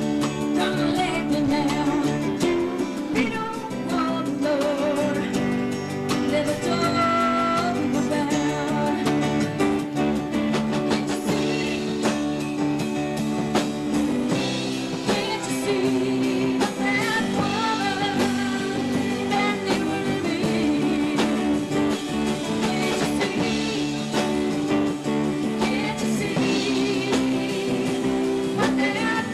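Live rock band playing: guitars and a drum kit, with a voice singing.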